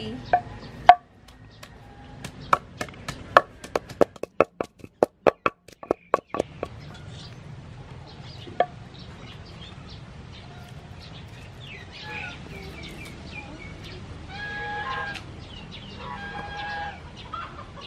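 Wooden pestle pounding chili in a wooden mortar: a quick run of sharp knocks, about three a second, for the first several seconds, then a single knock a little later. In the second half, chickens calling briefly a few times.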